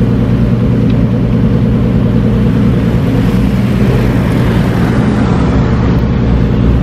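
Lamborghini Diablo's V12 engine idling steadily with a deep, even note. Another car drives past around the middle.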